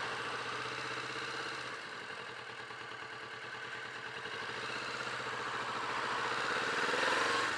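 Kawasaki Vulcan S motorcycle's parallel-twin engine running under way, growing louder from about halfway, with its note climbing near the end as it revs up.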